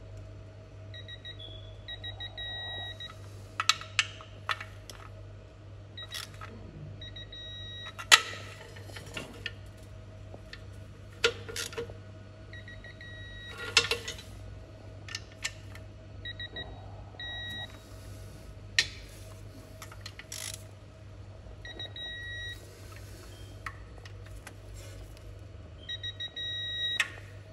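Short high electronic beeps from a digital torque adapter, coming in little runs several times and loudest near the end, signalling that each bolt has reached its set torque. Between them come sharp metallic clicks and knocks of the socket and extension on the bolts.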